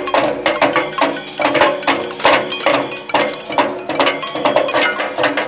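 Rapid, irregular banging on metal noisemakers such as pots, pans and cowbells, several sharp ringing strikes a second, with a steady low drone beneath.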